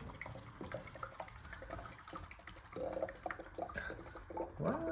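Water swirling in a homemade water-tornado vortex, with small splashes and drips scattered throughout and busier in the second half.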